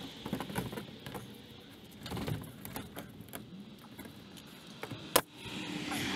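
Light clinks and rattles of work on a ladder as a trim piece is slid into place overhead and the worker steps down, with one sharp click about five seconds in.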